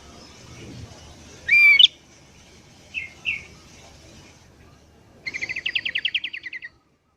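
Sooty-headed bulbul (kutilang) calling in a lively way: a loud burbling call about a second and a half in, two short notes around three seconds, then a fast chattering run of about a dozen notes near the end that stops abruptly.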